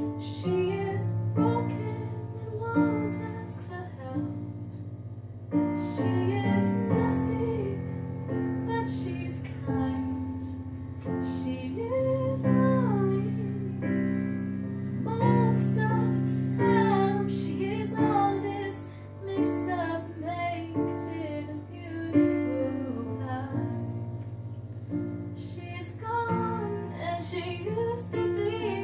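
A woman singing along to a karaoke piano backing track, her voice carrying the melody over steady piano chords.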